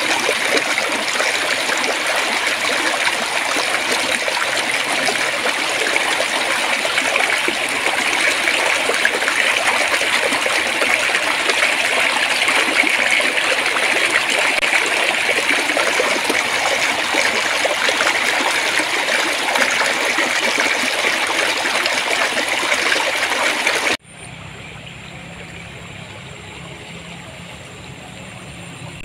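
Shallow flowing water babbling steadily. About 24 seconds in it cuts off abruptly, leaving a much quieter background with a low hum.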